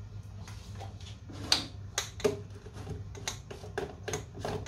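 Plastic screw caps being twisted and handled on centrifuge tubes, then on a jar lid near the end: a string of irregular small clicks and taps, over a steady low hum.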